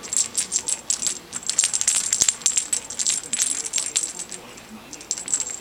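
Light metallic rattling of a small plush cat toy being shaken and batted by a cat's paws: quick clusters of clicks, thinning out after about four seconds.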